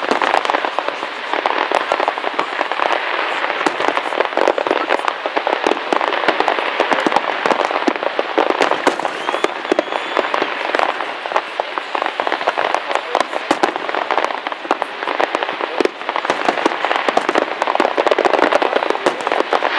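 Aerial fireworks shells bursting in rapid, unbroken succession: a dense crackle of overlapping bangs with no pause.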